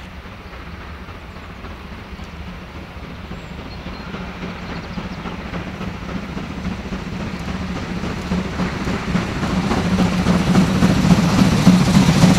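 German class 52 2-10-0 steam locomotive 52 1360 working a train toward the listener under steam, its exhaust and running gear growing steadily louder as it approaches.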